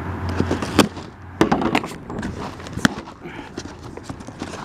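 A taped cardboard parcel box being opened and rummaged through by hand: rustling cardboard and plastic with several sharp snaps and clicks.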